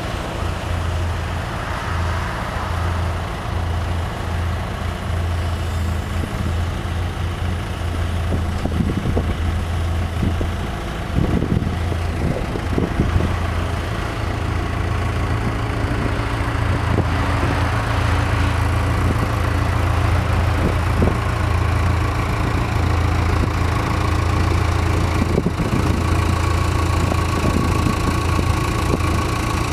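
JLG 400S boom lift's engine running steadily while the boom raises the platform, a little louder from about eleven seconds in.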